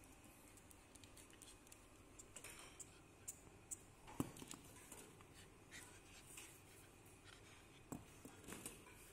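Faint, scattered clicks and scuffs of a corgi moving about on a tiled floor with a rubber toy in its mouth, with one sharper knock about four seconds in.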